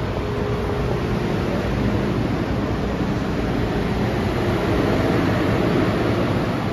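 Steady hum of an MTR M-train standing at the platform with its doors open, mixed with the even rumble of the underground station, with no sudden events.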